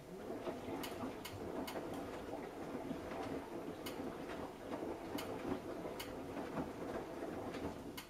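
Samsung Eco Bubble front-loading washing machine's drum turning the wet laundry in the wash phase of a 90 °C cotton cycle: a steady swishing tumble with a few sharp clicks. It starts at the beginning and stops about eight seconds later as the drum comes to rest.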